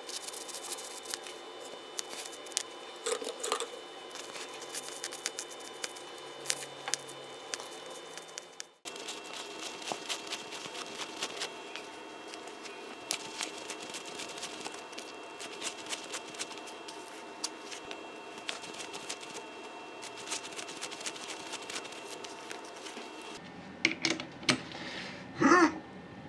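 Hand scraping on the spindle nose of an old metal lathe, first with a small wire brush and then with a thin metal pick: a dense run of small scratches and clicks, broken for an instant about a third of the way in. Near the end come a few louder grating, squeaky sounds as the chuck is gripped by hand.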